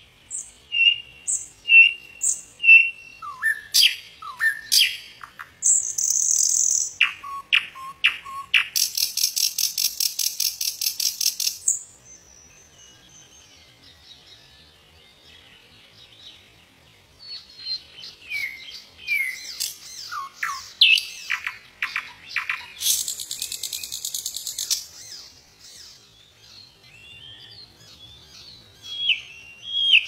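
Common nightingale singing in varied phrases: a run of repeated whistled notes, a fast rattling trill, a pause of a few seconds, then more whistles, slurred notes and a buzzy trill.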